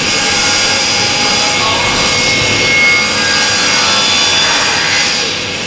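Steam locomotive in steam, venting with a loud, steady hiss of escaping steam that fades near the end.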